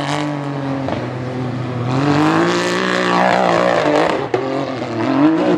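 UTV race car engine revving hard under load on a steep dirt hill climb. The pitch rises and falls several times as the throttle is worked.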